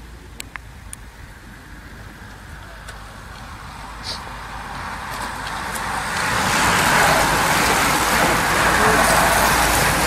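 A bunch of racing bicycles passing close by: the rolling hiss of many tyres on the road, building as the riders approach and staying loud as the group streams past, with a few sharp clicks early on.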